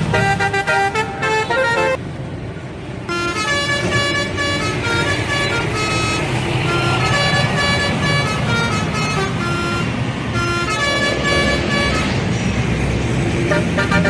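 Indonesian bus 'telolet' multi-tone horn playing a run of stepping, tune-like notes over a steady low rumble, with a short pause in the notes about two seconds in.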